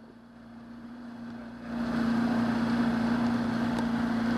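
Johnson 90 hp V4 two-stroke outboard motor running steadily under way, with a steady hum over a rushing hiss. It grows louder over the first two seconds, then holds.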